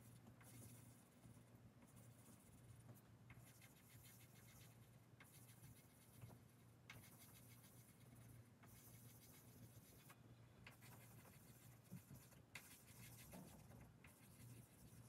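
Pencil drawing small dots on paper taped to a wall: faint scratching in short spells, one dot after another, over a low steady hum.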